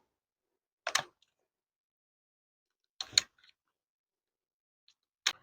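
A few short, sharp clicks in otherwise quiet air: one about a second in, a quick pair about three seconds in, and another near the end. These are handling sounds, gear and ammunition being worked by hand, not shots.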